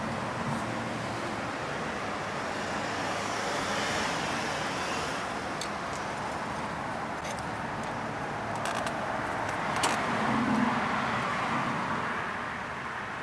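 Steady outdoor background rush with a few light clicks of hand tools on metal through the middle.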